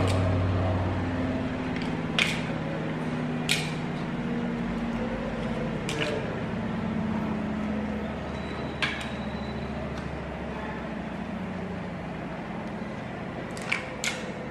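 Foil-lined paper cupcake liners being set into a metal muffin tin: about six light, sharp clicks and crinkles spaced a few seconds apart, two of them close together near the end. Under them runs a low steady hum.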